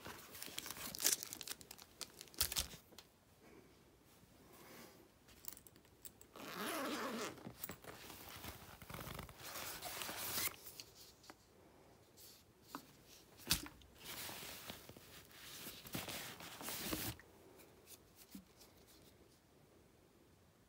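A fabric backpack being rummaged through by hand: irregular bursts of rustling and scraping of the bag's material and crinkling of a chocolate bar's plastic wrapper, with a few sharp knocks as a plastic bottle is pulled out.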